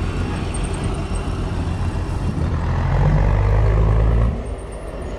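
Motor vehicle engine running with a low rumble. It grows louder and steadier about three seconds in, then drops back suddenly near the end, as if the throttle is eased off.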